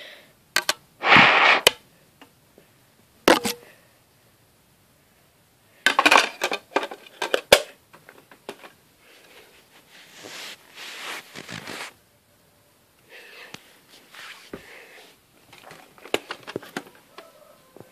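Handling noise of CDs and plastic parts: scattered sharp clicks and clatters, with a loud rustling scrape about a second in, a quick run of clicks around six to seven seconds, and soft rubbing and brushing in between.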